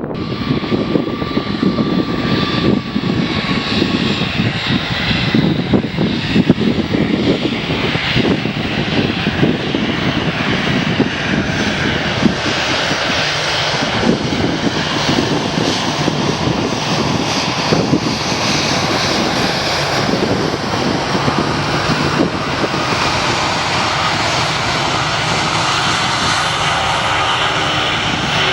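Loud, sustained engine noise from an airliner's jet engines as the plane passes near the runway.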